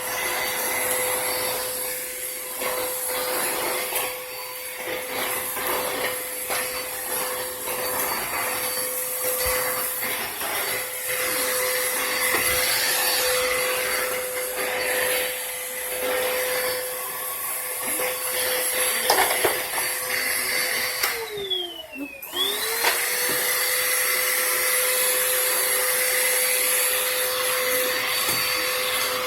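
Household vacuum cleaner running with a steady motor whine and rushing air, with scattered knocks from the cleaner head on the floor. About three-quarters of the way through, the motor winds down almost to a stop and then spins back up to full speed.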